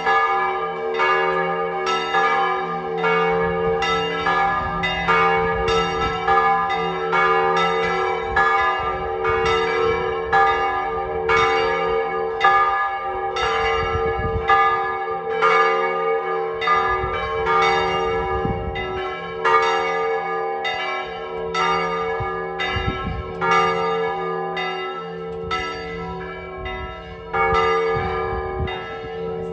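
Full peal (plenum) of a church tower's three swinging bells, probably cast by the local Mari foundry. The bells strike in quick overlapping succession, about two strokes a second, over a steady ringing hum.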